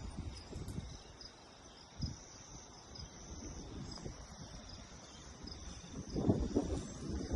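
Insects trilling steadily, a high, even buzz. Low rumbles come about two seconds in and again, louder, near the end.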